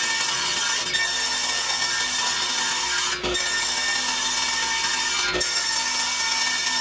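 Delta contractor table saw running steadily while ripping quarter-inch plywood, with brief breaks about three and five seconds in.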